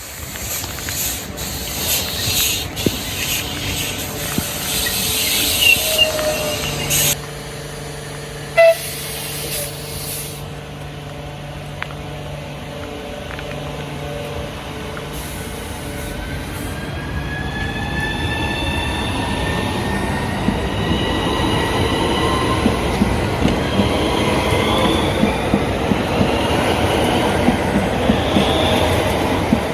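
Southeastern electric multiple-unit train, its traction motors whining higher and higher as it gathers speed and grows louder. Wheels click over the rail joints near the end.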